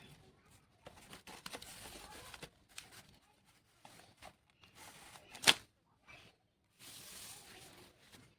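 Paper and card being handled, rustling and tearing in short spells, with a loud sharp click about five and a half seconds in.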